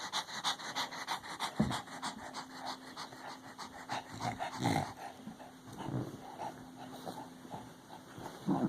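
Dog panting hard in rapid, shallow breaths, with a few heavier, deeper breaths mixed in; the dog is really bloated.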